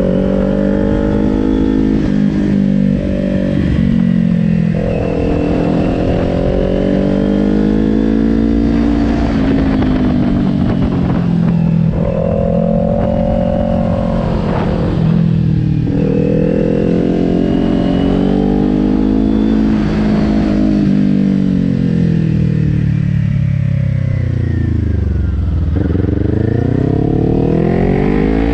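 2020 Kawasaki Ninja 400's parallel-twin engine heard from on board, its revs rising and falling over and over as the bike accelerates and rolls off through the corners. Near the end the revs drop low, then climb steeply.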